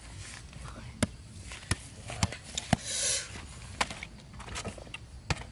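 Footsteps in sandals on dry grass and sandy ground, with several sharp clicks and a short louder rustle about three seconds in.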